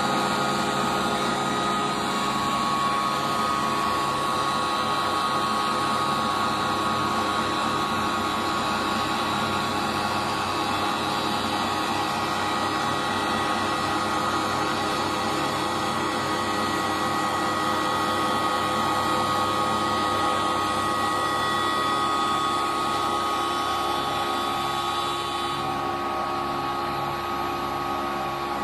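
CNC wood lathe running: the spindle motor drives a square wooden blank while the cutters turn it to shape, a steady whir with several whining tones over a cutting hiss. The higher part of the hiss drops away a few seconds before the end.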